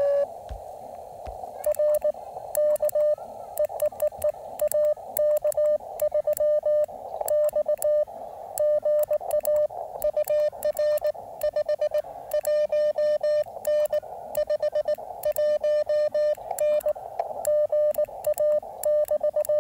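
Morse code (CW) from a ham radio transceiver's speaker: a single tone of about 600 Hz keyed on and off in dots and dashes over a narrow band of receiver hiss, with faint clicks.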